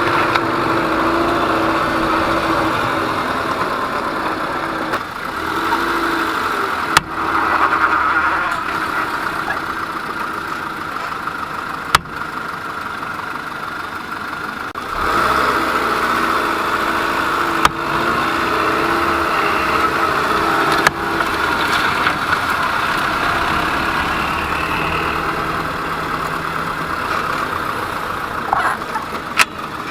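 Peugeot 207 running with steady engine and running noise, broken by a handful of sharp knocks at irregular intervals: the knock from a front wheel hub with play, even with a new SKF bearing fitted.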